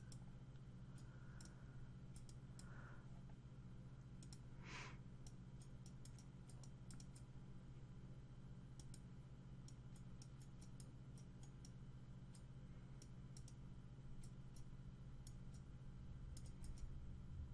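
Faint computer mouse clicks, many and irregularly spaced, over a low steady hum.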